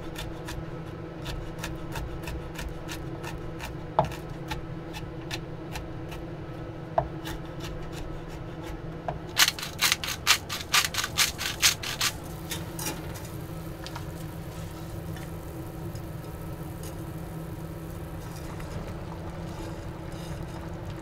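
Salt grinder cranked over a pot of water: a run of rapid grinding clicks lasting about two and a half seconds, near the middle. Scattered kitchen clicks and taps come before and after it, over a steady low hum.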